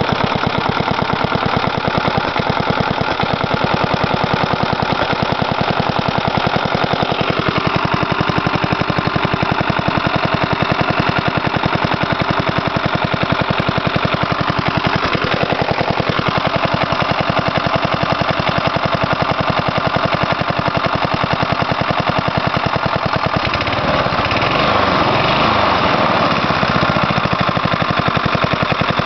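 1977 Briggs & Stratton 3 hp single-cylinder flathead lawn mower engine running on its own fuel system just after a winter cold start. It fires with a rapid, even beat, and its speed wavers a few times: a brief dip near a quarter of the way in, another about halfway, and a louder surge near the end.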